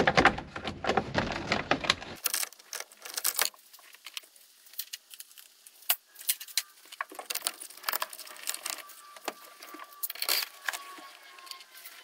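Small metallic clicks and jingling rattles from hand tools and parts being worked around a steering column's ignition lock cylinder. The clicks are dense for about the first two seconds, then scattered.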